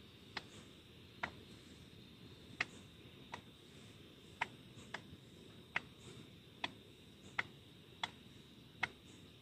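Sharp single clicks, about a dozen at uneven intervals, over a faint steady hiss with a thin high tone.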